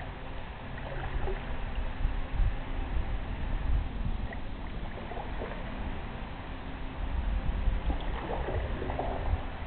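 Canoe paddle dipping and pulling through calm water, with soft splashes and gurgles a few times, over a steady low rumble.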